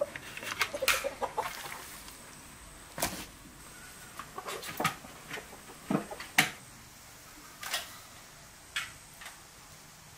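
Domestic hens clucking in short, scattered calls, mixed with a few sharp clicks.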